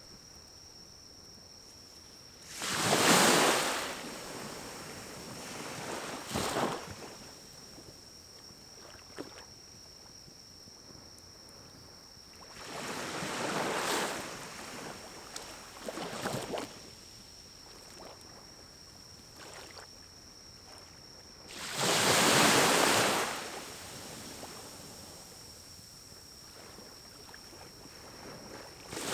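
Small pine-cone fire in a wood-burning stove, with three loud rushing whooshes of air about ten seconds apart and a fourth beginning at the very end, plus a few faint crackles and pops between them. A faint steady high tone sits under it all.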